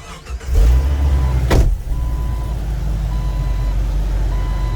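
A 1998 Jeep Wrangler TJ's engine starts about half a second in and settles into a steady low running rumble. The dashboard warning chime beeps at intervals over it, and there is one sharp knock about a second and a half in.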